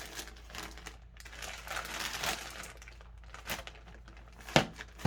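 Packaging crinkling as an item is unwrapped by hand, then a few small clicks and a sharp knock about four and a half seconds in.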